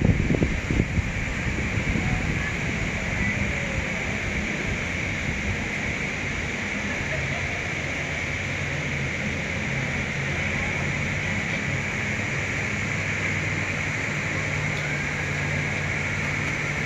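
Steady outdoor background rush, with wind buffeting the microphone in the first second and a low steady hum coming in about seven seconds in.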